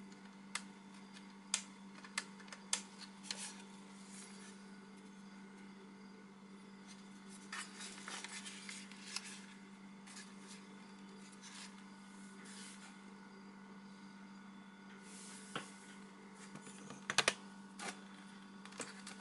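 Handling noise from a plastic battery LED video light with gooseneck arms being turned over in the hands: scattered sharp clicks and knocks, a short rustle about eight seconds in, and a cluster of clicks near the end. A steady low hum runs underneath.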